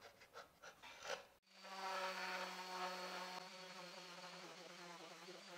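A few faint scrapes of a chisel paring pine, then from about a second and a half in a random orbital sander running steadily over the pine box's surface, a faint even buzzing hum.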